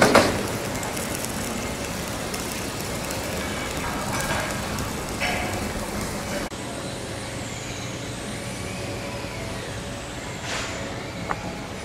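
Wood fire burning in a steel barrel under a whole pig on a spit rack: a steady rushing noise with a few crackles. About six and a half seconds in the sound drops suddenly to a quieter, steadier background.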